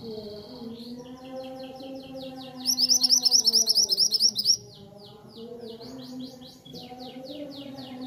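Caged mantenan (minivet) singing: a run of quick repeated high notes, rising to a much louder, very fast trill for about two seconds in the middle, then back to softer repeated notes.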